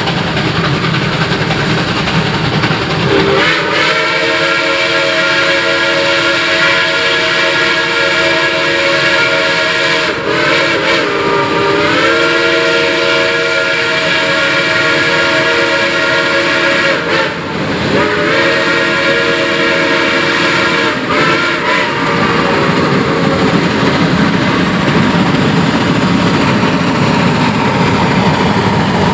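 Doubleheaded Shay geared steam locomotives running past, their steam whistle sounding a chord of several notes in three long blasts from about three seconds in until about two-thirds through, with the pitch sagging briefly as the second blast opens. The locomotives' running noise continues underneath and carries on after the whistle stops.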